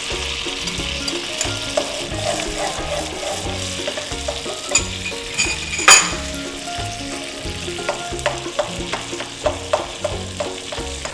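Beaten eggs sizzling in melted butter in a nonstick pot while being scrambled with a slotted spatula, which clicks and scrapes against the pot, with one louder knock about six seconds in.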